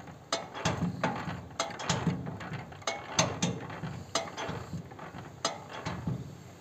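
Irregular metallic clanks and rattles from a diesel walk-behind tiller being rocked by hand to shake the last of the engine oil out of its open drain.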